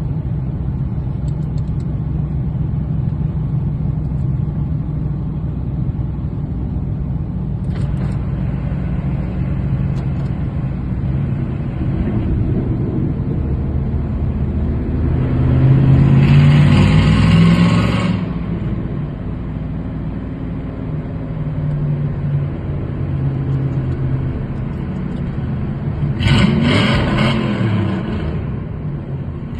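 Dodge V8 engine and exhaust running steadily in a road tunnel. It is revved up hard about halfway through, the loudest part, and again more briefly near the end.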